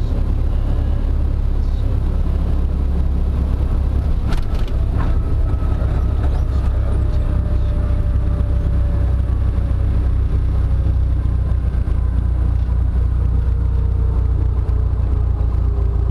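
Super Decathlon's four-cylinder Lycoming engine and propeller running at low power, heard from inside the cockpit as the plane rolls along the runway. It is a steady low drone with a faint whine that slowly falls in pitch, and a couple of light clicks about four seconds in.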